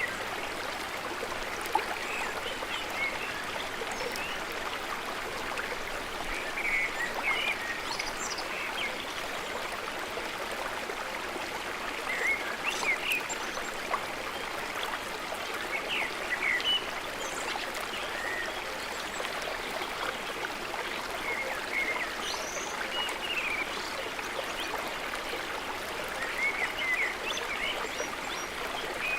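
Water in a mountain stream rushing steadily, with short high chirping calls coming through now and then.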